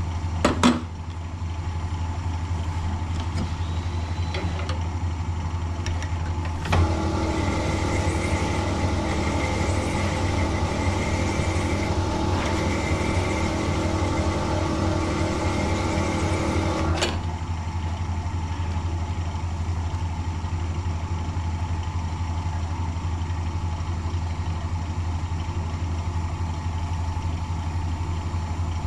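Sunnen honing machine's motor running steadily, with a few sharp metal clicks in the first second as a rocker is handled on the mandrel. About seven seconds in, a louder grinding whine of several steady tones starts as the honing stone cuts inside a new rocker bush, and it stops abruptly about ten seconds later: the bush being opened out a little at a time to a snug fit on the rocker shaft.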